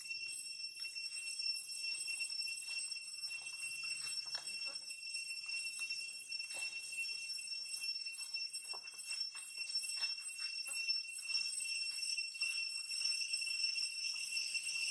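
Infant long-tailed macaque suckling at its mother's nipple, making short irregular wet smacking clicks (the 'chop chop' of full-mouth nursing), over a steady high-pitched ringing drone of insects.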